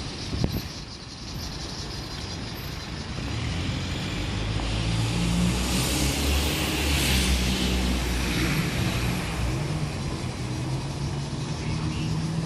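A motor vehicle passing: its engine hum and tyre noise grow louder, peak about six or seven seconds in, then fade. A short knock about half a second in.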